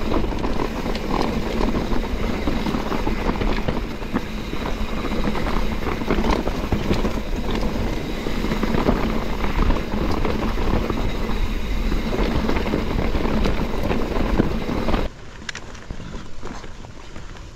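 Mountain bike riding a rough, rocky dirt trail, heard from a camera on the bike or rider: a steady rumble of wind on the microphone and tyres on dirt, with a constant clatter of small rattles and knocks. About fifteen seconds in it drops suddenly to a quieter level.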